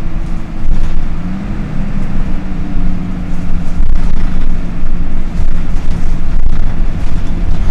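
Dennis Dart SLF bus engine running with its radiator cooling fan on: a loud, steady low rumble with a hum that rises slightly in pitch about one and a half seconds in.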